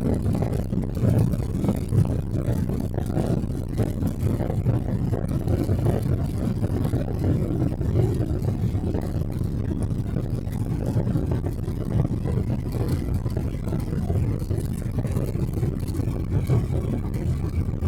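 Steady rumble of a Boeing 777-300 airliner's jet engines and rushing air, heard from inside the passenger cabin.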